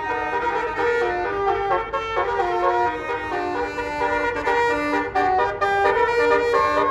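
Bus 'telolet basuri' multi-trumpet air horn playing a melody: several steady horn tones held together, stepping from note to note a few times a second.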